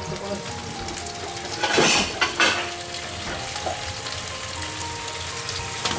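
Chicken tsukune patties sizzling in a frying pan in a shallow layer of water and oil as they steam-fry, with a louder burst of sizzling noise about two seconds in.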